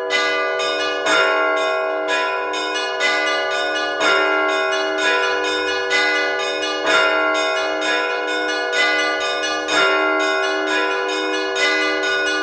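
Orthodox church bells rung by a bell-ringer in a simple Rostov-style weekday peal. Smaller bells are struck in a quick, repeating rhythm over the steady ringing hum of the larger bells, with a heavier stroke every few seconds.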